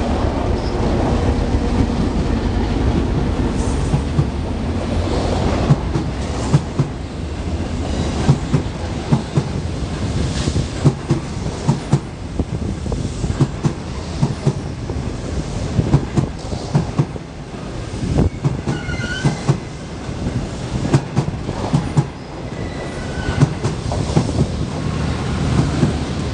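Intercity passenger train passing through a station: a heavy rumble at first, then the long rhythmic clatter of the coaches' wheels over the rail joints, with faint brief wheel squeals near the end.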